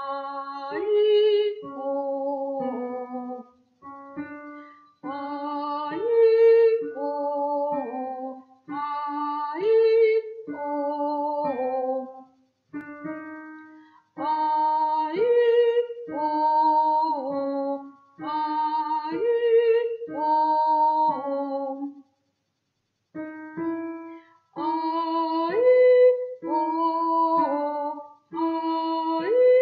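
A woman singing a chromatic vocal warm-up: the same short melodic pattern of held notes with vibrato, repeated over and over in brief phrases with short pauses between, stepping up and down in pitch.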